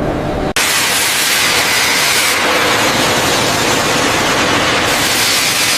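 Steady, loud hiss of a high-pressure blast or spray, as from a restoration blaster or jet. It starts abruptly about half a second in, after a low rumble cuts off.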